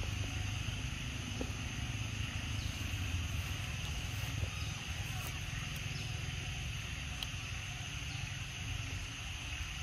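Steady outdoor background noise: a low rumble under a constant high hiss, with a few faint ticks.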